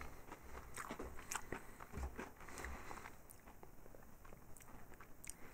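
Faint chewing and crunching of a crunchy white-chocolate-coated corn-cereal snack, a scatter of small irregular crackles.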